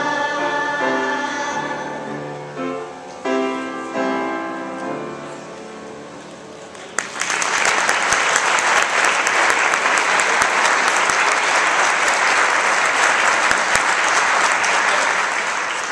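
Children's choir singing the last phrases of a song, the final notes fading out; about seven seconds in, applause breaks out and continues until near the end.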